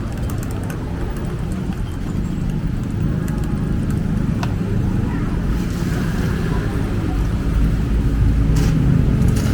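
Road traffic passing on a city street, a steady low noise that grows louder in the last few seconds, with a few sharp clicks on top.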